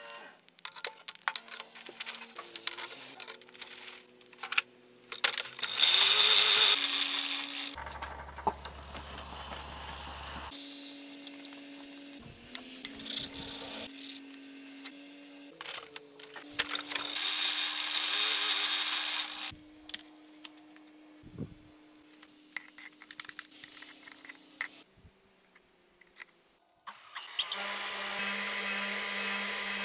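Clinks of tongs and steel, then a red-hot forged tomahawk head quenched in a can of oil, hissing in two loud bursts as it goes in. Near the end a bandsaw's motor starts and runs with a steady hum.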